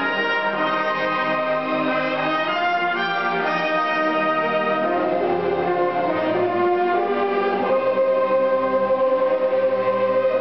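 Youth symphony orchestra playing a classical-style arrangement, strings with brass, moving through sustained chords and settling on one long held note in the last few seconds.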